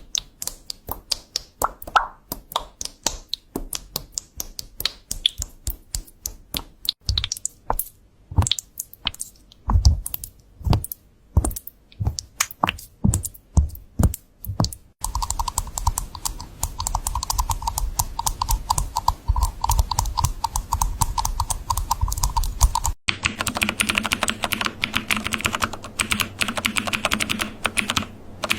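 Typing on a computer keyboard: separate keystrokes, several a second, for about the first half, then faster continuous typing. About 23 s in it cuts abruptly to another keyboard being typed on, with a different tone.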